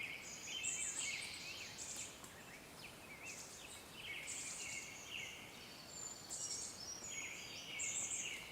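Several birds chirping and calling at once: short trills and quick up-and-down notes, overlapping steadily.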